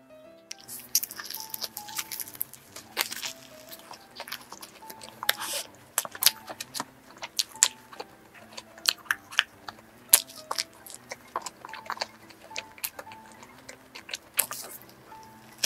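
Crisp, flaky croissant-dough pastry of a cream-filled New York roll crackling and crunching as it is torn and bitten, with many sharp irregular crunches and chewing. Soft background music with a simple melody plays underneath.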